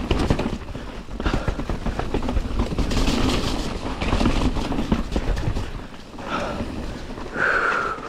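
Mountain bike riding down a dirt trail: tyres on dirt, the bike rattling and clattering over rough ground, with wind rumbling on the microphone. A short high squeal is heard near the end.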